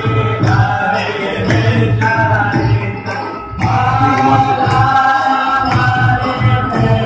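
Hindu devotional aarti song: voices hold long sung notes over a regular percussion beat of about two strikes a second.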